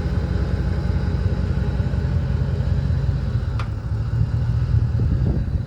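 Steady low rumble with one sharp click about three and a half seconds in.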